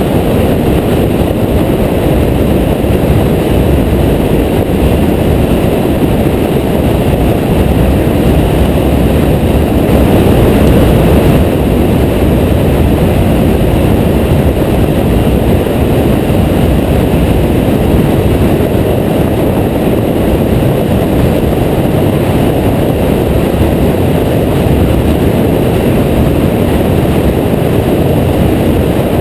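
KTM Duke 390 single-cylinder motorcycle ridden at a steady road speed, heard mostly as loud, steady wind rush on the action camera's microphone, with the engine and tyres beneath it.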